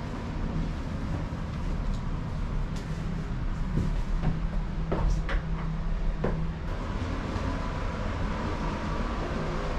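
Steady low drone of a large ferry's engines and ventilation, heard inside a cabin. A few light clicks and knocks come between about four and six and a half seconds in.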